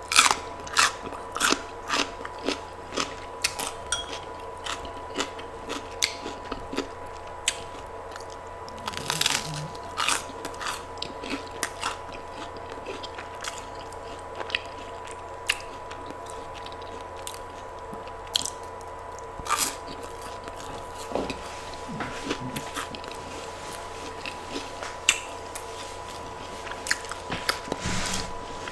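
Close-miked eating: crunchy bites and chewing, with many sharp crunches in irregular clusters. A steady high electrical hum runs underneath.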